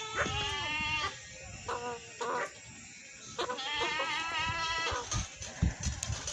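Livestock bleating: several wavering calls in a row, the longest in the middle. A few low thuds come near the end.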